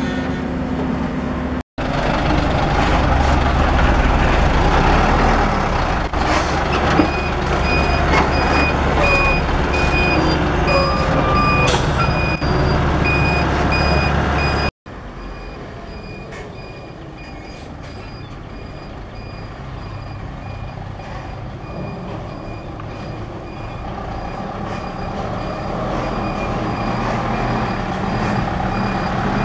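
Thaco Forland dump truck's diesel engine running while its reversing alarm beeps in a steady repeating pattern, starting about a quarter of the way in. The engine is louder in the first half.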